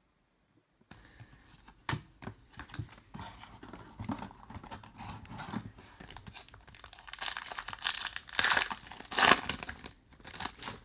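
Trading cards being handled, then a Topps Star Wars Galaxy card pack's wrapper crinkling and tearing open. The crinkling is loudest in the last few seconds.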